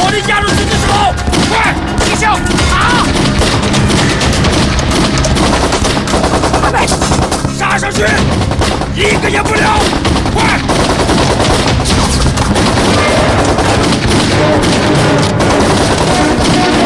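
Sustained rapid machine-gun fire in a film battle scene, dense volleys of shots with no break, under dramatic background music.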